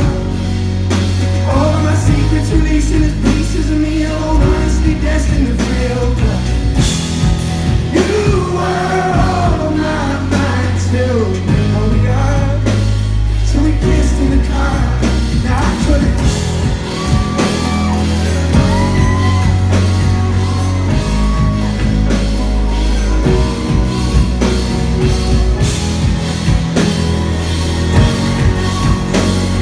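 Live band playing loud, with steady drums and heavy bass under a voice singing long, wavering melodic lines.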